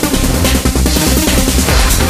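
Psychedelic trance track: a steady kick drum and bass under dense layers of electronic synthesizers.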